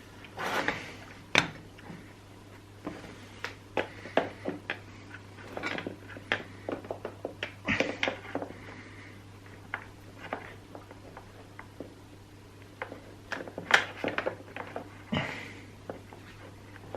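Hands working a small rubber hose onto a fitting inside a chainsaw's plastic housing: irregular small clicks, taps and rubbing of plastic and rubber parts, over a steady low hum.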